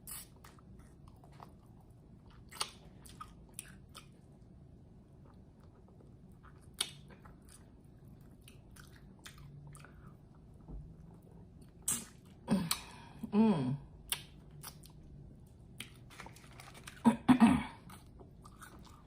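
Close-miked chewing and crunching of fried chicken wings, with sharp wet mouth clicks here and there. Two short vocal noises break in, one about two-thirds of the way in and another near the end.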